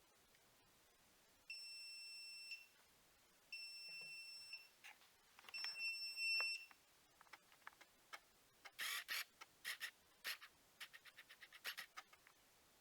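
Washing machine's electronic signal beeping three times, each a steady high tone about a second long, followed by a run of quick clicks and knocks.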